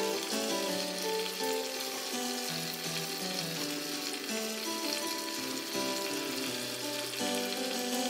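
Steady hiss of running, splashing water from a small homemade indoor fountain, under background music with a slow melody of held notes.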